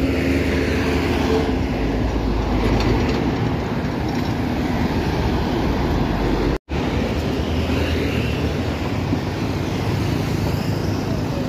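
Double-decker coach passing close by with its diesel engine running, then the steady noise of road traffic as more buses, trucks and motorcycles go by. The sound drops out for an instant a little past halfway.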